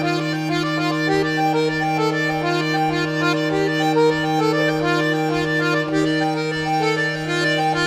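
Piano accordion playing a folk tune, a run of changing melody notes over a steady held low note.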